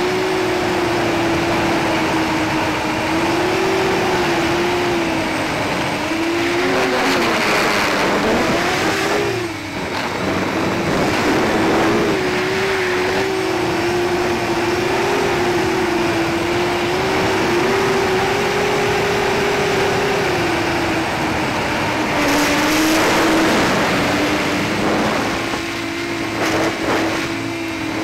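Hubsan H501SS quadcopter's brushless motors and propellers whining in flight on a 3S battery. The pitch rises and falls with the throttle, over a steady rush of noise. The whine drops away briefly about ten seconds in and again near the end.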